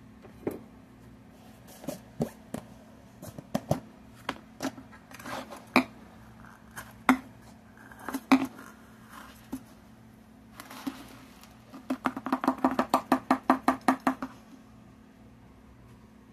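Kitchen utensils clicking and knocking against a bowl while brown sugar is measured out: scattered single taps and clatter, then a quick run of taps, about six a second, for about two seconds near the end.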